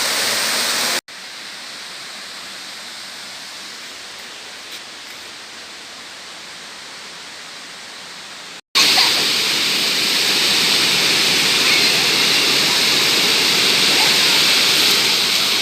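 Waterfall's steady rush of falling water, with two abrupt cuts. About a second in it drops to a quieter, duller stretch, and near nine seconds it jumps back louder with more hiss.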